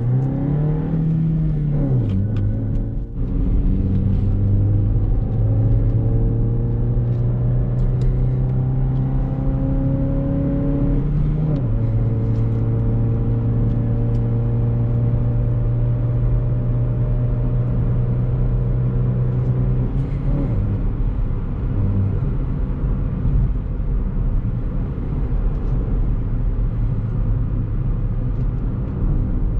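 Chevrolet Beat's engine breathing through a K&N performance air filter, pulling hard up a climb. Its steady drone rises slowly in pitch through each gear, and the pitch drops at gear changes about two, eleven and twenty seconds in. After that the engine note is lighter.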